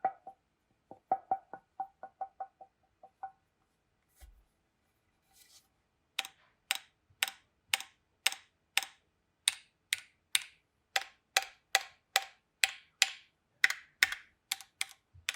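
Knocking and tapping on the Keychron Q1's aluminium keyboard case, each tap followed by a short metallic ping: the sign of a hollow, pingy case. Quick light taps in the first few seconds, then after a pause a steady run of sharper strikes about two a second.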